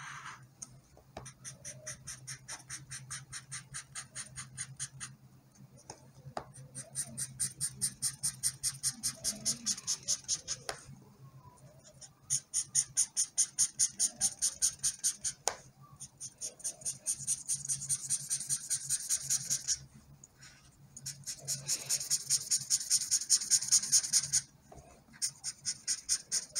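Felt-tip marker scratching on paper in fast back-and-forth colouring strokes, about four or five a second. The strokes come in runs of several seconds with short pauses between them.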